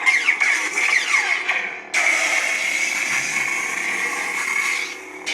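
Lightsaber sound font playing from a Sabertrio saber: the humming blade whooshes with rising and falling swing sounds. About two seconds in, a harsher buzzing starts suddenly, holds for about three seconds, then drops away.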